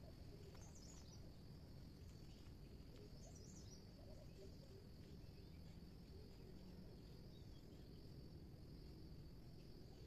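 Faint outdoor ambience: insects keep up a steady high-pitched drone, and a bird chirps briefly twice, about one and three seconds in, over a low background hum.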